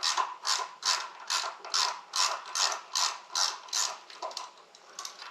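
Hand ratchet wrench clicking through quick repeated strokes, about two and a half a second, loosening the fastener of the motorcycle's front ABS wheel-speed sensor. The strokes grow fainter and stop near the end.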